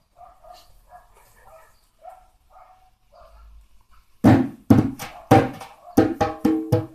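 A hand drum with a skin head slapped with a baby's open palms: about seven loud, uneven slaps in the last three seconds, each with a short ringing tone, after a few seconds of faint small sounds.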